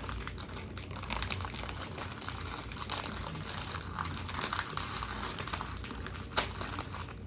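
Plastic snack wrapper crinkling continuously as it is handled, with one sharp click about six seconds in.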